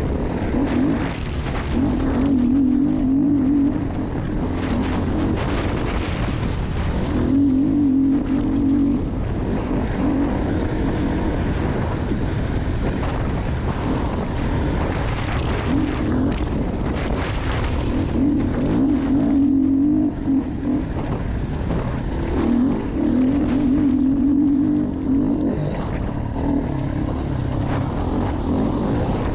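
Dirt bike engine running and revving in bursts of one to two seconds as the throttle is opened and shut on the trail, with wind on the microphone.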